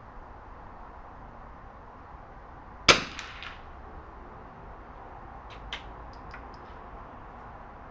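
A single .22 subsonic rifle shot, a sharp crack with a short tail, about three seconds in. Two to three seconds later comes a quick run of light clicks. Wind rumbles on the microphone throughout.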